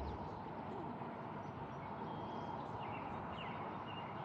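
Faint birdsong, a few short chirps and a thin held whistle, over a steady hiss of outdoor background noise.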